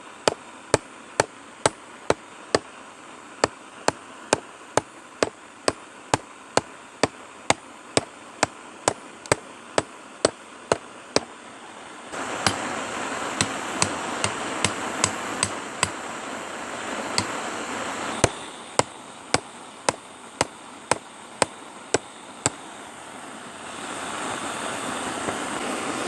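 Hand hammer striking hot mild steel on an anvil, forging a punch in a steady rhythm of about two blows a second that stops a few seconds before the end. A steady rushing noise comes in partway through, fades, and returns near the end.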